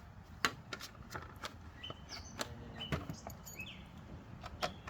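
Scattered light clicks and taps, a dozen or so at uneven intervals, with a few short bird chirps behind them.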